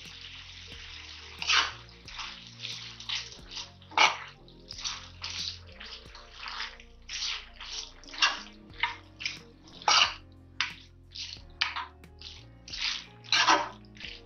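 Goat intestine (boti) frying in a non-stick kadai: a steady sizzle, then from about a second and a half in a metal spoon stirring and scraping through the pan in short strokes, one or two a second.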